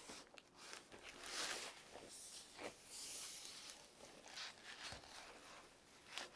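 Faint handling of keyboard packaging: rustling and sliding of box parts and wrapping, with scattered light knocks and taps.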